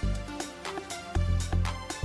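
Background music with a steady beat and heavy bass notes.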